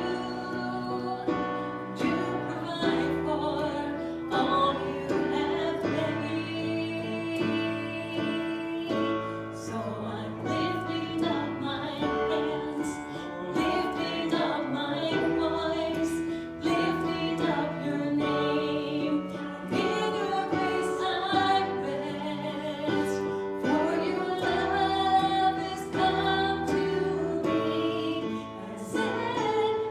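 Worship song in a church service: voices singing together, a woman's voice prominent, over instrumental accompaniment with a regular beat.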